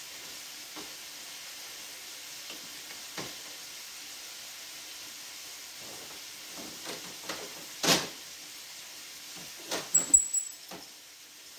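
Diced bacon sizzling steadily in a frying pan, with scattered clicks and knocks of spice jars being handled at the cabinet and set down on the counter; the sharpest knock comes about eight seconds in, and a quick cluster follows around ten seconds.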